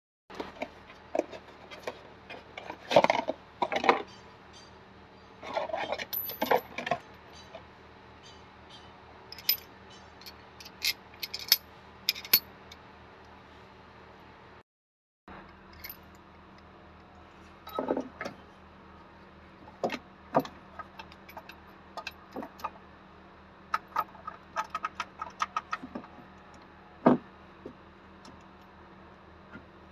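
Metal clinks, rattles and knocks as a car's belt pulley assembly and hand tools are handled, irregular and scattered, over a steady low hum, with a short break of silence about halfway.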